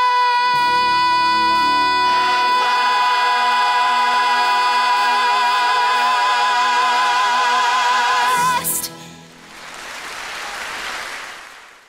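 A woman's high belted soprano note held for about eight seconds over instrumental accompaniment, its vibrato widening toward the end before it cuts off. Applause follows and fades out.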